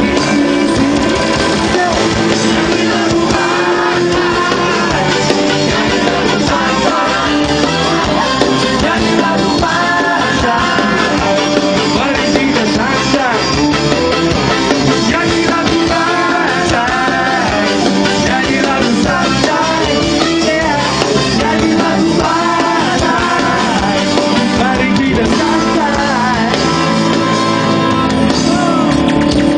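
Live band playing loudly, with electric guitars and a singer.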